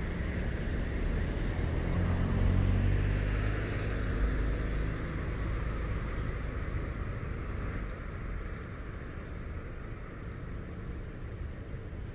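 Engine of a passing motor vehicle, loudest about two to three seconds in, then fading away.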